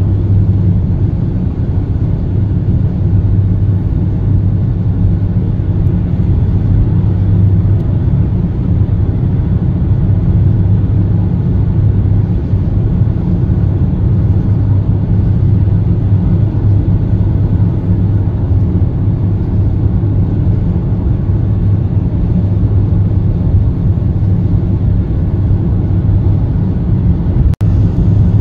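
Steady drone of a car cruising on a highway, heard from inside the cabin: engine and tyre road noise, with a deep hum. The sound briefly cuts out near the end.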